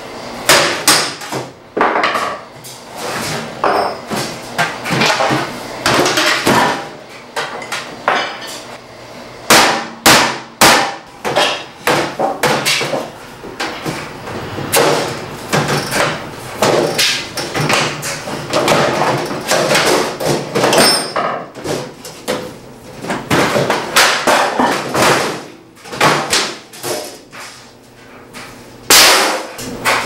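Repeated knocks and metallic clattering as the sheet-metal outer cover of a microwave oven is hammered and pried loose and pulled off, the strikes coming irregularly, some sharp and loud.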